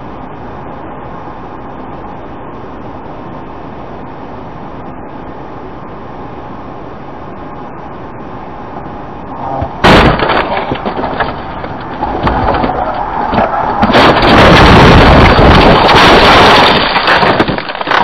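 Steady road noise inside a car's cabin, then about ten seconds in a sudden loud crash impact, followed by several seconds of loud crashing, cracking and breaking as the car wrecks, loudest near the end.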